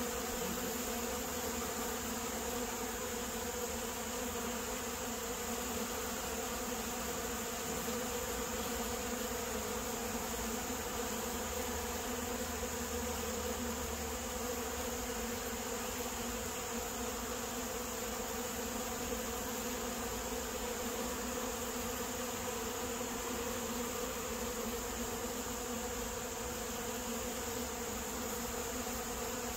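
Steady buzzing hum of a dense crowd of honeybees feeding and flying over fruit, an unbroken drone.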